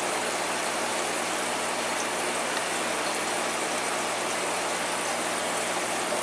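Aquarium air stone bubbling steadily, a constant hiss and fizz of rising bubbles over a steady low mechanical hum.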